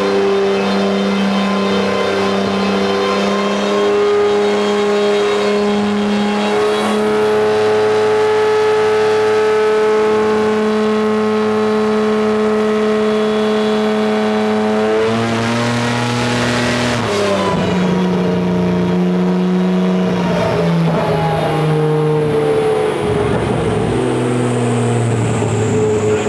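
Kia Stinger 3.3 twin-turbo V6 running loud on a chassis dyno, held at a nearly steady engine speed. About fifteen seconds in its pitch shifts and falls away, then settles at a few steady levels.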